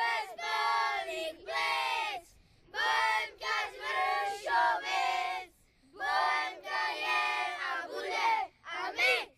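A group of boys chanting a team cheer in unison, in a run of short shouted phrases with two brief pauses.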